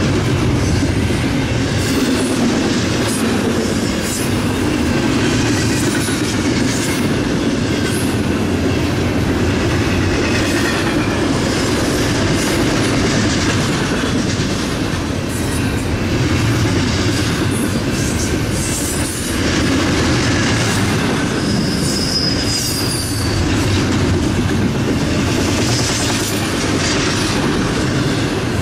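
Double-stack intermodal container train's well cars rolling steadily past: a continuous rumble of wheels on rail with clicks at the rail joints, and a brief high wheel squeal a little past two-thirds of the way through.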